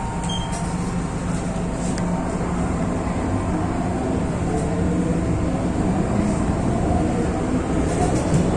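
MTR Tsuen Wan Line M-Train heard from inside the car as it pulls away from the platform: a steady rumble of wheels and running gear, growing slightly louder, with a faint rising whine from the traction motors as it gathers speed.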